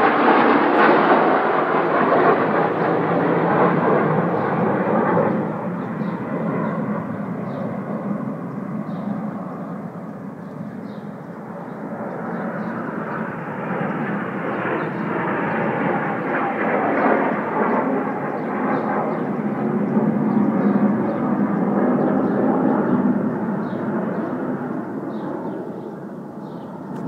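Jet noise of Aermacchi MB-339 jet trainers' turbojets flying past overhead. It is loud at first, eases off about ten seconds in, swells again and drops away near the end.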